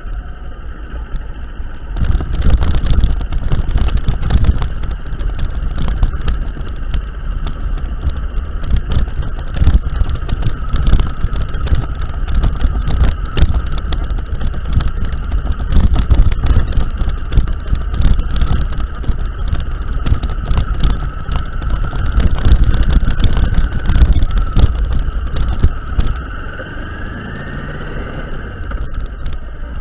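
Vehicle travelling over a badly broken road surface, running with a steady whine under a constant low rumble and a rapid stream of knocks and rattles from jolting over the potholes. The jolting starts about two seconds in and eases off near the end.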